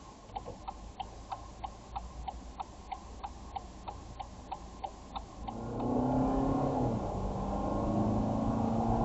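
A car's turn-signal indicator ticking steadily, about three ticks a second, heard inside the cabin; the ticking stops about five and a half seconds in, and engine and tyre noise rise as the car pulls away.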